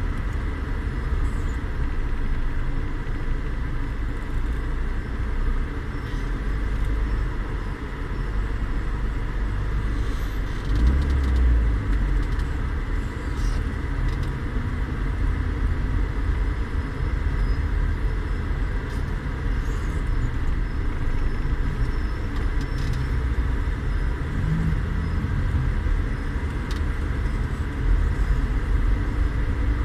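Steady low rumble of a car heard from inside the cabin, swelling briefly about eleven seconds in and again near the end.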